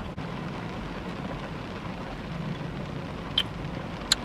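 Rain falling on a car's roof and windows, heard from inside the cabin as a steady even hiss. Two brief clicks sound near the end.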